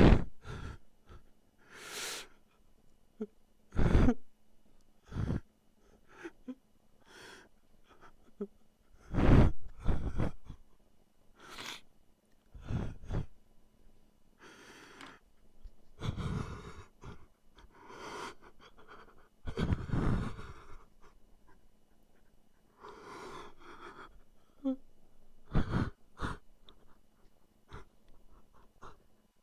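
A sound effect of a person crying: irregular sobs and gasping, wheezing breaths, some loud and some faint, with short pauses between them. It was offered as real weeping but comes across as unsettling rather than sad.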